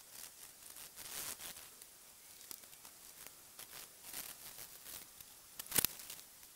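Pencil strokes scratching on paper in short, irregular, faint scratches. About 5.8 s in there is one louder, brief rustle or knock.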